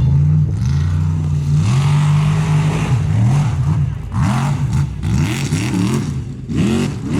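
Formula Offroad race truck's engine running hard at high revs, then from about three seconds in revving up and down rapidly again and again as the throttle is worked. Bursts of rushing noise come and go alongside it.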